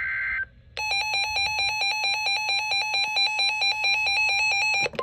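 Emergency Alert System tones: the last burst of the SAME digital header's data tones cuts off about half a second in. After a short gap comes an electronic alert tone that pulses rapidly at an even rate for about four seconds, then stops abruptly.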